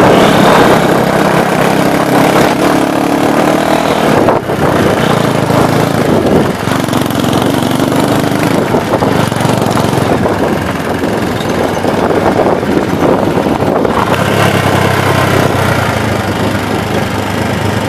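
Small trail motorcycle's engine running while the bike is ridden along a dirt track, its pitch rising and falling with the throttle.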